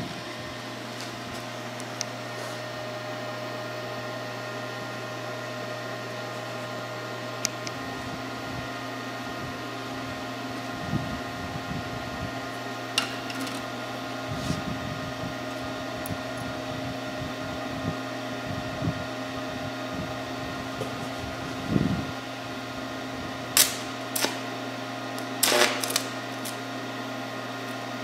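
Forney Easy Weld 110 V stick welder switched on and idling: its cooling fan running with a steady electrical hum. A few sharp clicks or taps come near the end.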